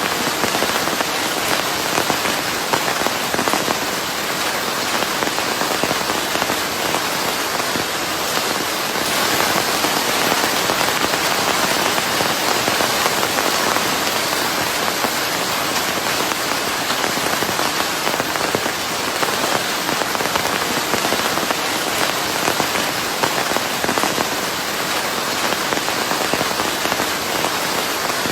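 Steady, heavy rain falling on a surface, a dense continuous hiss with fine crackling drop impacts, mixed with white noise.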